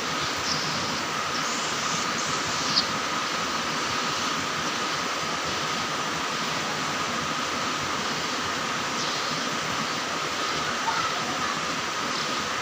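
Steady hiss-like noise with a faint steady tone underneath, and a few faint high chirps followed by a short click about three seconds in.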